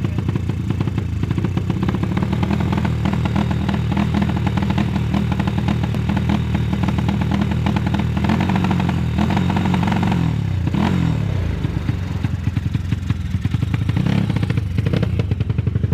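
Honda CB motorcycle with a single-cylinder Honda Tiger four-stroke engine, fitted with a 35 mm PWK Sudco Airstrike carburettor and a modified camshaft, running. About eight seconds in it is revved up and held, then falls back to idle over the next three seconds, with another short throttle blip near the end.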